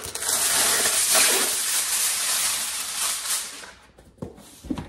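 Aluminium foil being pulled off the roll from its box and handled, a loud crinkling rustle lasting about four seconds.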